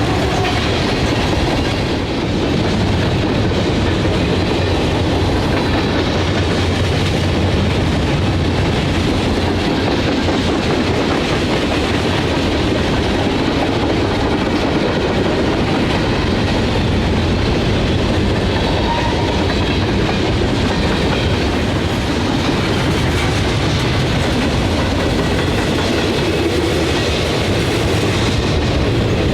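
Long freight train rolling steadily past at speed, its steel wheels clattering and rumbling over the rails.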